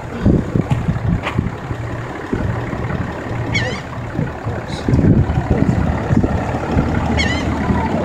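Wind buffeting the microphone with a steady low rumble. Gulls give two short high calls, each a quick run of notes falling in pitch, about halfway through and again near the end.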